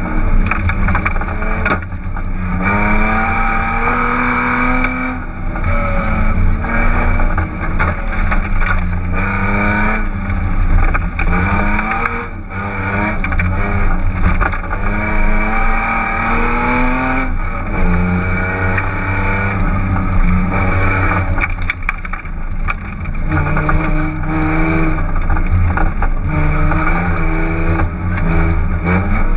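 BMW 328is straight-six engine run hard at wide-open throttle, heard from inside the cabin. It climbs in pitch and drops back at each gear change, over and over. The exhaust is disconnected at the midpipe.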